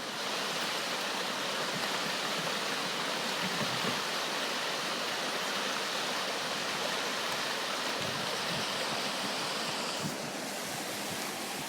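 River rapids rushing: a steady, even rush of whitewater.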